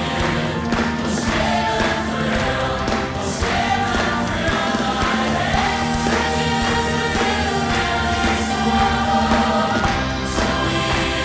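Musical-theatre number: an ensemble singing in chorus over a band with a steady beat.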